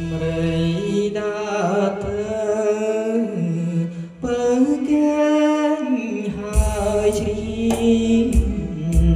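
A man singing into a handheld microphone over a karaoke backing track, amplified through a JBL EON208P portable PA. Deep bass notes and a drum beat come in about two-thirds of the way through.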